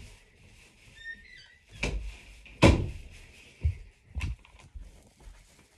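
A door being opened and shut with several knocks and thuds. The loudest thud comes a little under three seconds in.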